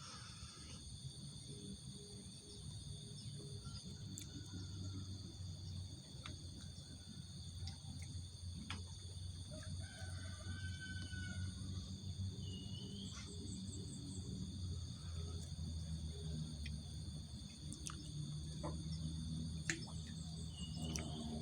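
Chorus of insects trilling in several steady high pitches, with a few short bird chirps and a steady low rumble underneath.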